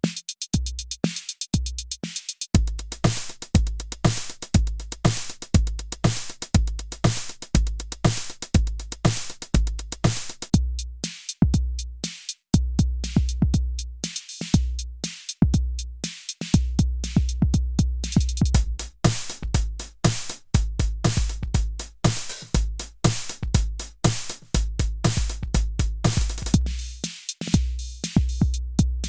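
Electronic drum machine beat: deep kick, snare and hi-hats in a steady looped pattern, comparing the Arturia Drumbrute Impact's analog drums with sampled 80s drum machines from the Addictive Drums 2 Reel Machines pack. There is a brief break about twelve seconds in, after which the kick pattern comes in busier.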